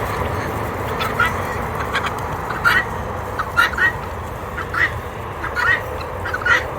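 Poultry calling: short calls repeated every half second to a second over a steady background hum.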